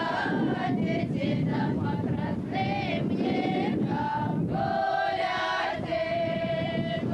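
A folk choir of women's and men's voices singing together in long held notes, over a steady low rumble.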